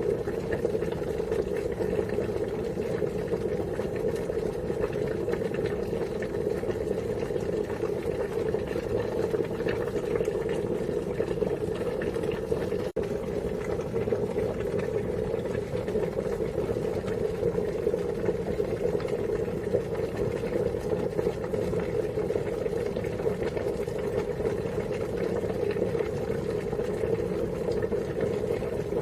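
Water boiling hard, a steady, dense bubbling with a split-second break about halfway through.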